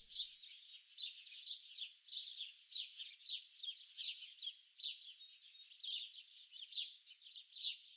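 A chorus of small songbirds chirping and twittering, many short, high notes sweeping downward in quick overlapping runs.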